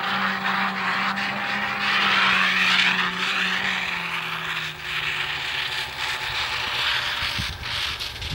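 Arctic Cat M1000 snowmobile's two-stroke twin engine running with a steady drone that drops in pitch about four seconds in.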